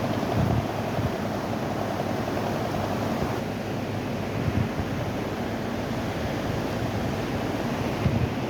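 Steady rushing roar of a river in flood, with some wind on the microphone.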